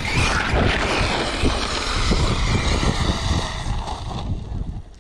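Arrma Mojave 8S electric RC car running with its brushless motor under throttle, mixed with wind buffeting the microphone. The noise eases off a little after four seconds in.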